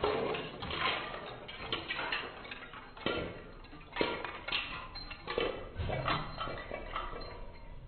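Irregular light metallic clinks and clattering: a series of sharp knocks, some louder than others, about a second apart.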